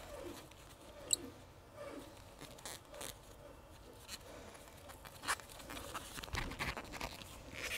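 Faint clicks and rustles of a low-angle block plane being handled and its blade adjusted in gloved hands, with a sharper click about a second in and another about five seconds in.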